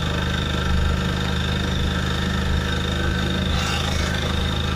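Vehicle engine idling steadily in stopped highway traffic, a low even hum, with a short hiss about three and a half seconds in.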